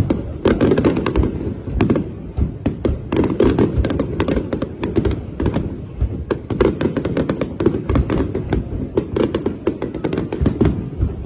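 Fireworks display at full pace: a dense barrage of shells bursting in rapid succession, several sharp bangs a second with no pause.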